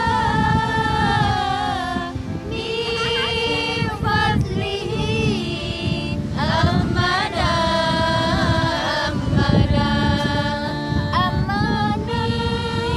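A group of women singing sholawat, Islamic devotional songs in praise of the Prophet, together in long melismatic lines that bend up and down in pitch and are broken by short breaths.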